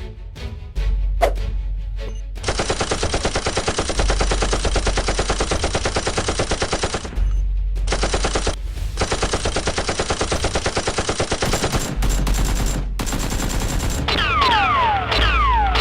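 Rapid automatic-gunfire sound effects in long bursts, over background music with a steady low beat. Near the end come several quick falling whistling tones.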